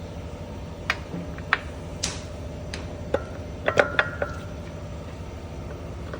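Irregular sharp clicks from a Ram pickup truck while it turns, over a steady low hum. There are single clicks in the first three seconds, then a quick cluster a little before the middle.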